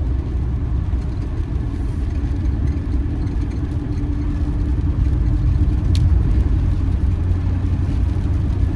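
Steady engine and road rumble heard from inside a moving campervan's cab, with one sharp click about six seconds in.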